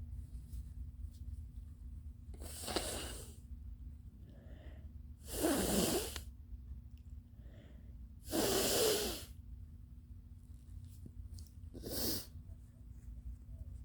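A person blowing their nose forcefully four times, clearing it after a sneeze. The second and third blows are the longest and loudest, and the last is short.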